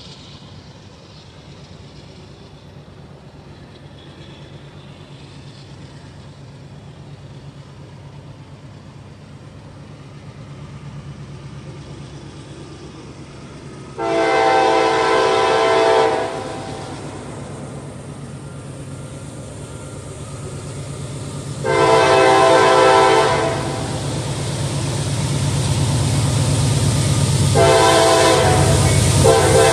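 CSX diesel-electric freight locomotives approaching at full throttle (notch 8), their engine rumble growing steadily louder. The multi-note air horn blows two long blasts, about halfway through and again some eight seconds later, and a third begins near the end, the horn signal for the grade crossing.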